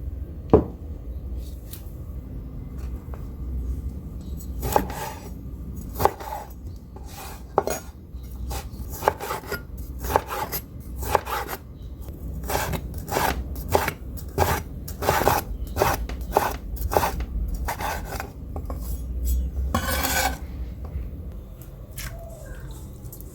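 Kitchen utensils knocking and scraping against a bowl or board in a run of irregular short strikes, about one or two a second, during food preparation.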